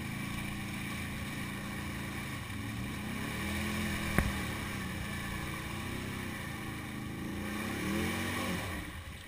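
Can-Am quad engine revving in repeated surges, the pitch rising and falling as the quad churns through a deep mud hole, with one sharp knock about four seconds in. The engine note falls away just before the end.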